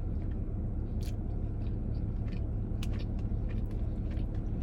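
Steady low rumble of an idling car, with scattered faint clicks and smacks of eating.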